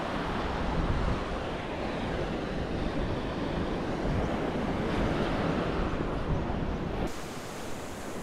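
Wind buffeting the microphone over surf washing on the beach. About seven seconds in the low wind rumble drops away suddenly, leaving a lighter, steady hiss.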